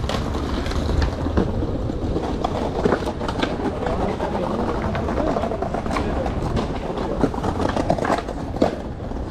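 Skateboard wheels rolling over paving slabs: a steady rumble with clicks as the wheels cross the joints, and now and then a sharp clack of a board.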